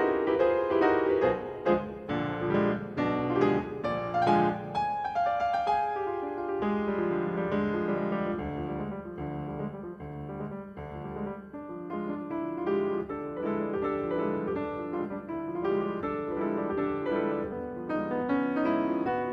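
Piano music accompanying a silent film: busy, quickly struck notes for about the first six seconds, then a slower, smoother melody.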